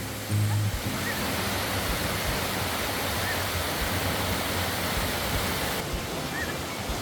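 Steady rush of a waterfall's falling water, setting in about a second in, with a few faint short chirps over it.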